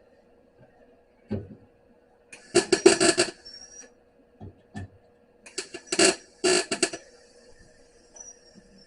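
Harbor Freight MIG welder laying short stitch welds on sheet-metal floor pan: two crackling bursts about a second to a second and a half long, with a few light taps between them. A steady hum runs underneath.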